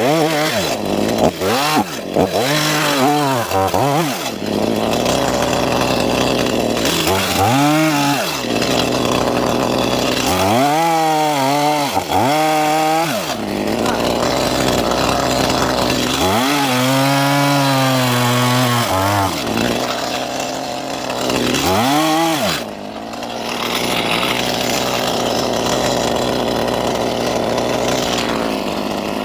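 Stihl two-stroke chainsaw running hard and cutting wood, its engine speed repeatedly dropping and picking back up every few seconds.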